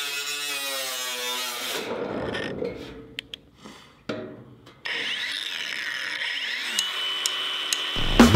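Cordless angle grinder with a cutoff disc cutting through a metal gutter, its motor whining. It winds down about two seconds in, then starts again after a short lull and settles back into a steady whine. Music with a heavy beat comes in right at the end.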